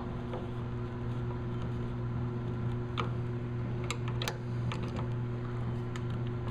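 Hand-held Phillips screwdriver turning small screws into a chrome lamp bezel: a scatter of light metal clicks and ticks as the tip seats and turns, over a steady low hum.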